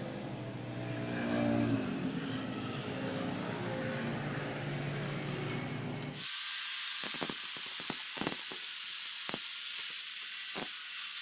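Bosch GWS angle grinder with a thin cut-off disc running: a loud, steady hiss with a faint high whine that starts abruptly about six seconds in, with a few faint ticks. Before it, a low rumble.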